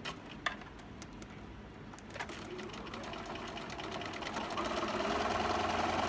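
Computerized sewing machine: a few sharp clicks, then the motor starts about two and a half seconds in, speeds up and runs steadily, stitching a seam.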